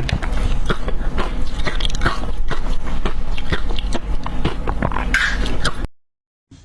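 Ice dusted with matcha powder being bitten and chewed close to the microphone: a dense run of irregular crunches that cuts off suddenly near the end.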